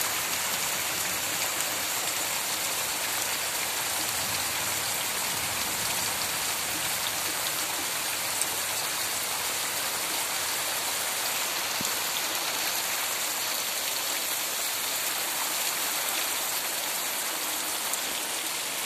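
Heavy rain falling steadily on bare earth: a dense, even sound of drops that holds unchanged throughout.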